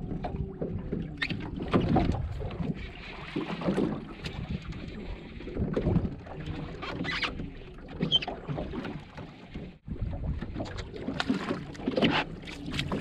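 Wind buffeting the microphone and water slapping against a small boat's hull, with scattered irregular knocks and clicks.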